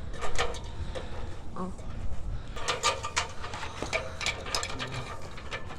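Irregular metallic clicks and clanks from hand work on antenna-tower hardware, over a low steady rumble.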